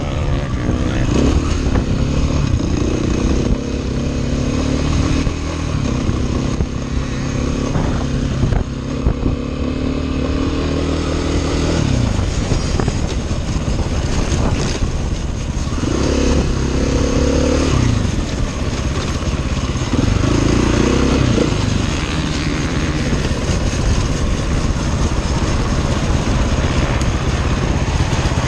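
Dirt bike engine running, its pitch rising and falling several times as it is revved up and down.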